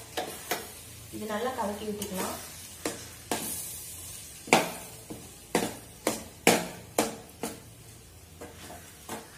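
A spatula stirring flattened-rice upma in a stainless steel pan, knocking and scraping against the pan about a dozen times at an irregular pace, with a light sizzle from the hot pan.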